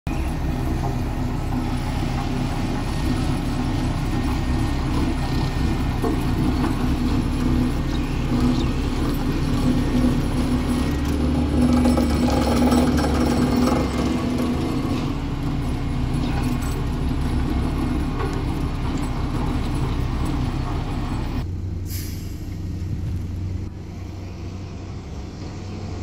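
Diesel engine of heavy road-construction machinery running steadily, loudest about halfway through. About 21 seconds in it cuts abruptly to a quieter engine sound, with a short high sound just after.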